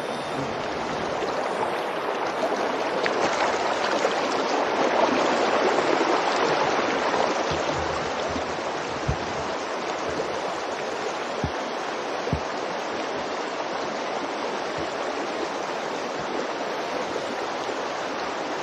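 Muddy floodwater rushing over a wide gravel riverbed: a steady rushing noise that swells a little a few seconds in. A few faint low bumps come about halfway through.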